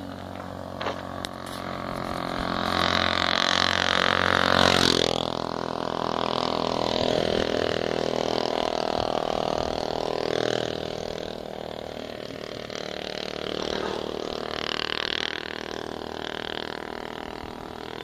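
A motor vehicle's engine running. It grows louder to a peak about five seconds in, where the pitch drops sharply as if a vehicle passes close, then settles into a steadier drone.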